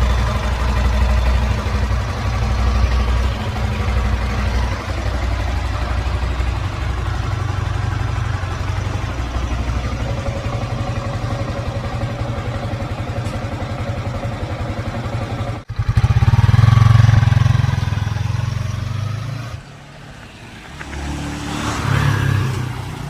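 Yamaha Sniper 155 VVA's single-cylinder engine on its stock exhaust, running at a steady low speed, then revved louder about sixteen seconds in, dropping back, and revved again briefly near the end.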